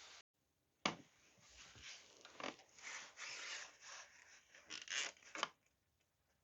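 Hands working on metal exhaust parts: irregular rubbing and scraping, with sharp clicks about a second in, around two and a half seconds and near five and a half seconds.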